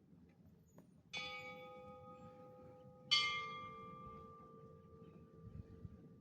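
San Xavier Mission church bells struck twice, about two seconds apart, each strike ringing on and slowly fading. The second strike is louder and comes from a different bell.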